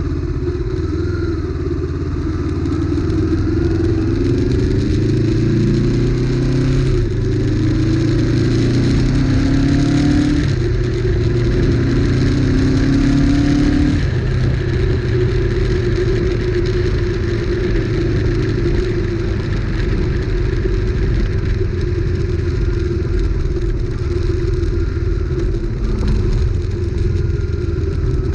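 Honda CB500X parallel-twin engine revved up several times in the first half, then running steadily. A rattle comes from the front end, from the small plastic steering-tube cap vibrating against the headstock.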